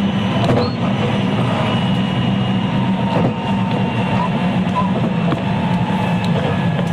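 Interior running noise of a JR West 223 series electric multiple unit, heard inside motor car KuMoHa 223-3016: a steady rumble of the train rolling on the rails, with faint thin tones above it.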